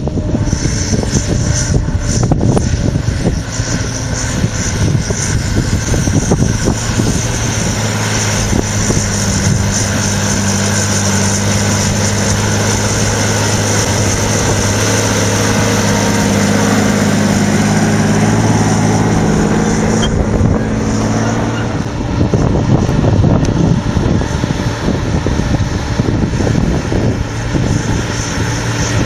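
John Deere 8420 tractor's six-cylinder diesel engine working hard under heavy load, pulling a cultivator through the soil at full depth. The engine note is steady and even, heard most clearly in the middle stretch, with rougher noise around it at the start and end.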